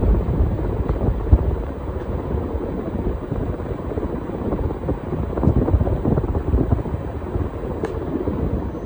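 Casablanca Spirit Of Saturn ceiling fan running with five blades: an uneven low rumble of air stirred by the blades and buffeting the microphone.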